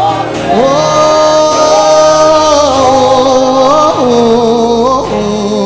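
Live worship song: a lead singer holds long notes that slide up and down between pitches, over musical accompaniment.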